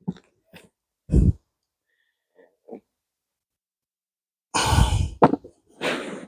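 A person's breath puffing out a few times in short, noisy bursts with pauses between.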